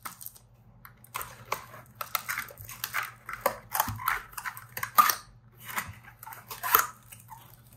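Cardboard packaging insert being handled and folded open: irregular rustling, scraping and light taps, with sharper crackles about five seconds in and near the end.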